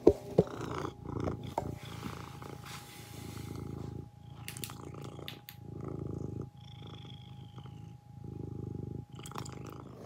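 Domestic cat purring close up, the purr rising and falling in even cycles about once a second.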